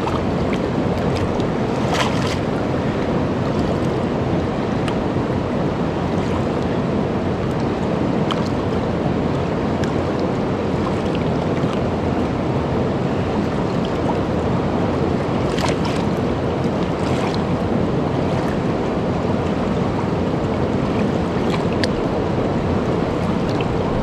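Steady rush of a fast-flowing river, with a few faint clicks from handling.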